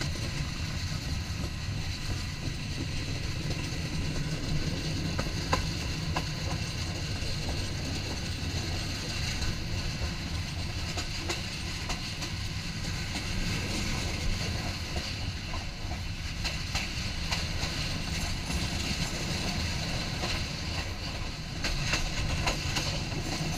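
Sonar Bangla Express passenger train running along the track: a steady rumble and hiss with scattered clicks of the wheels over rail joints, coming more often near the end.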